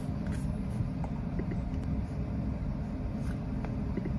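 Steady low background rumble of room noise, with a few faint soft clicks.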